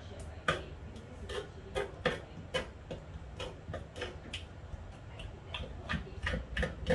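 Kitchen knife clicking and tapping against a wet wooden cutting board while cleaning raw squid, in short, uneven strokes about three a second.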